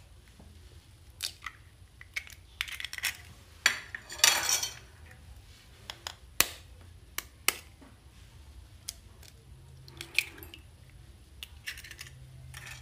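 A table knife tapping and cracking eggshells over a ceramic bowl: a series of sharp clicks and knocks, with a longer crackle of shell being pulled apart about four seconds in.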